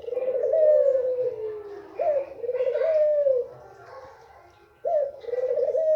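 Female white barbary dove (ringneck dove) cooing: three calls, each a short rising note followed by a long, slightly falling rolling coo, the second about two seconds in and the third near the end.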